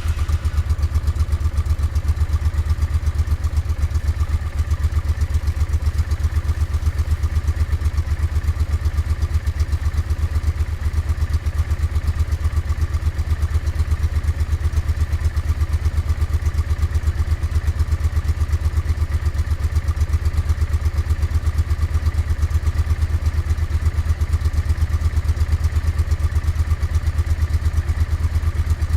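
Honda NTV650's V-twin engine idling steadily through an aftermarket Motad exhaust, with an even, deep pulsing beat.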